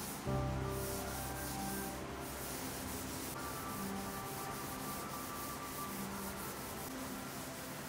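Hand-sanding a flat wooden panel with a sanding block: quick, even back-and-forth rasping strokes of abrasive on wood.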